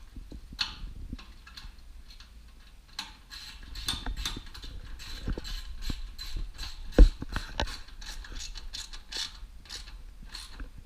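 Parts being fastened onto a car's instrument panel carrier with hand tools: a dense run of small metallic clicks and taps, with one louder knock about seven seconds in.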